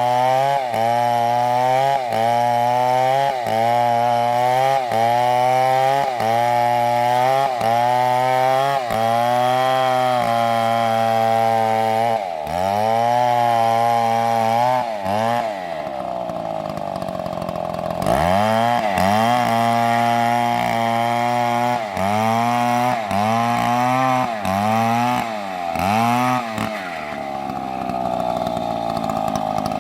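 Stihl chainsaw engine running at high revs, its note dipping and recovering about once a second. The revs fall away about halfway through, climb again, resume the same dips, and near the end drop back to a lower, steady running speed.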